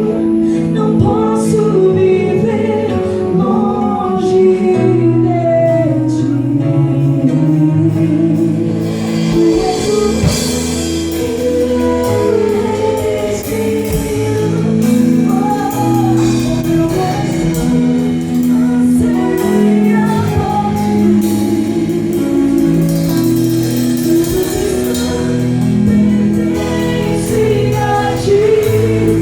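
A gospel band performing live: singing over a full band, with cymbal washes building in about nine seconds in and again past the middle.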